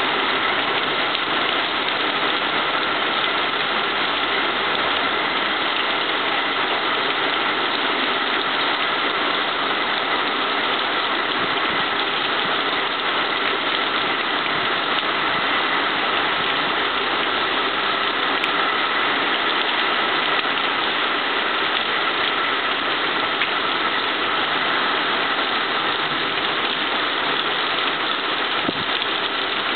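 Heavy rain pouring down in a thunderstorm, a loud steady hiss that keeps on without letting up.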